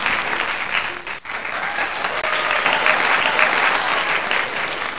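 Audience applauding, with a brief drop about a second in before the clapping carries on.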